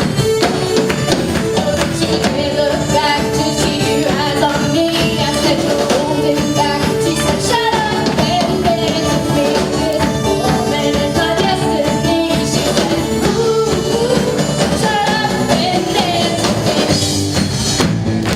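Live rock band playing through a PA, with a steady drum-kit beat, guitar and some singing.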